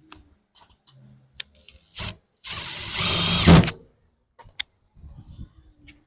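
Cordless impact driver with a Phillips bit driving a mounting screw: a short burst about two seconds in, then a longer run of just over a second that gets louder as the screw seats and winds down as the trigger is released. Light clicks of handling around it.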